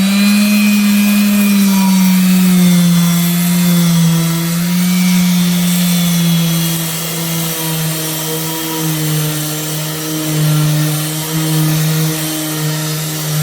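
Ryobi electric sander with 120-grit paper running steadily while sanding curb-rash scratches out of an aluminium wheel. A steady motor hum drops slightly in pitch about two seconds in as the sander is pressed to the metal, then wavers as it is moved, over a gritty rasp of abrasive on aluminium.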